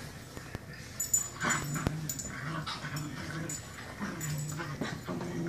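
Dog play-fighting with a cat, making short, low, repeated growls with a few light knocks from the scuffle.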